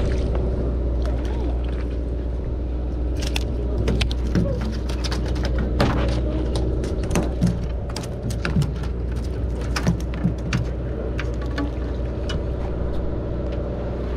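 A boat's engine running with a steady low hum, with scattered sharp clicks and knocks on deck.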